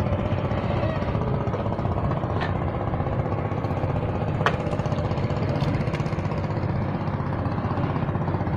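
Small boat engine idling steadily, a low chugging that runs unchanged, with two sharp clicks about two and a half and four and a half seconds in.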